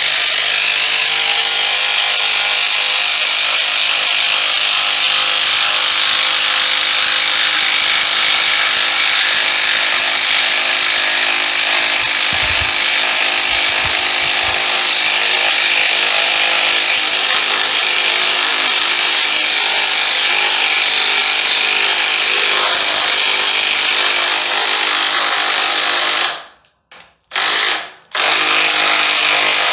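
DeWalt Atomic compact 1/2-inch brushless impact wrench on high, hammering steadily as it drives a 10-inch lag bolt into a wooden beam on a 2.0 Ah battery. It stops suddenly about 26 seconds in, gives a short burst a second later, then runs again near the end.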